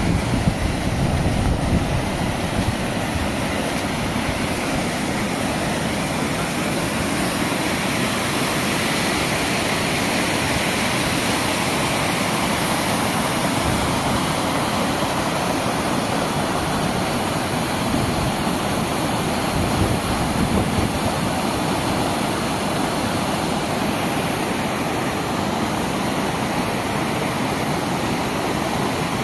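Muddy flash-flood water rushing steadily down a rocky gully, a continuous even rush of turbulent water over stones.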